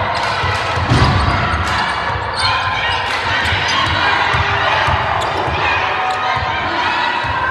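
Basketball dribbled on a hardwood gym floor, bouncing again and again, with voices from the crowd and players over it.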